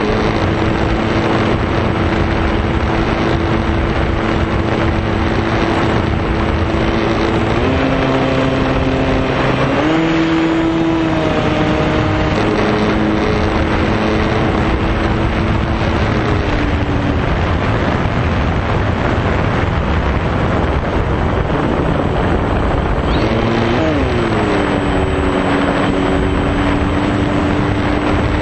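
Electric motor and propeller of a foam RC combat airplane running under heavy wind rush. Its pitched hum holds steady, then steps down and up several times as the throttle changes, with a quick dip and rise near the end.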